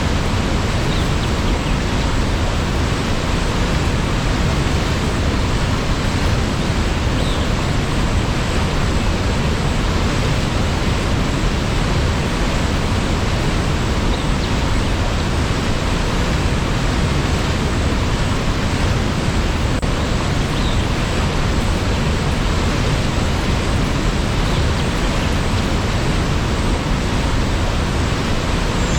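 Steady, loud rush of falling water from a waterfall, an even roar without breaks.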